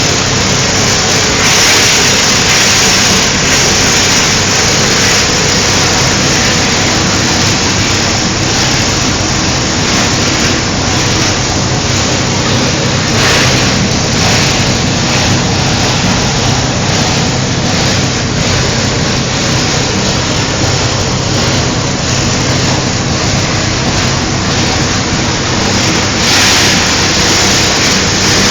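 Medical waste shredder running: a steady motor hum under a continuous grinding noise, which swells briefly a few times.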